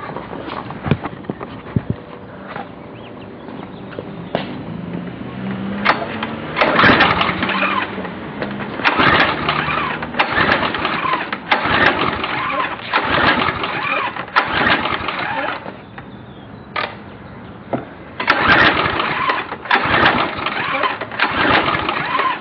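Briggs & Stratton Quantum 5.5 HP pressure-washer engine being pull-started again and again, the recoil starter cranking it in quick repeated pulls with a short pause between two runs of pulls, and the engine not catching: it will not start despite a cleaned carburetor and a new spark plug.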